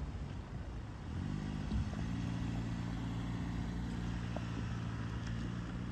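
Car engine running at low speed as the car drives slowly away, a steady low hum that sets in about a second in.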